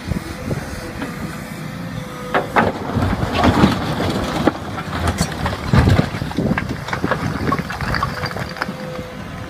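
Cat 312E L excavator's diesel engine running under load while its steel bucket digs into a heap of old bricks. From about two seconds in, the bricks clatter, knock and scrape against the bucket in a string of sharp impacts.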